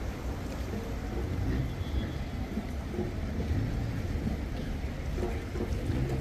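Wind buffeting the microphone as a low, uneven rumble, with faint voices of people nearby now and then.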